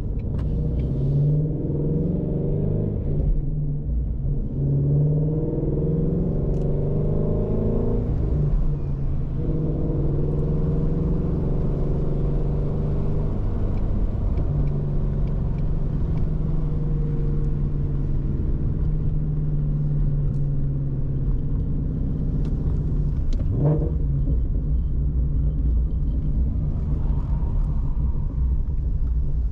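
2019 Shelby GT350's 5.2-litre flat-plane-crank V8 driving on the road, over a constant low rumble. Its pitch climbs and drops back twice in the first eight seconds, then holds a steady cruising note.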